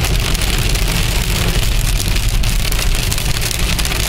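Rain and small hard hailstones hitting a car's windscreen and roof, heard inside the moving car's cabin: a dense, steady hiss of many small sharp hits over the low, constant rumble of the car's engine and tyres on the wet road.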